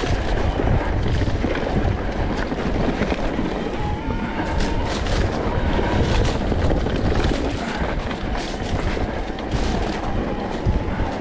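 Wind buffeting the microphone over the running engine of an enduro motorcycle on the move, its pitch rising a little about four seconds in.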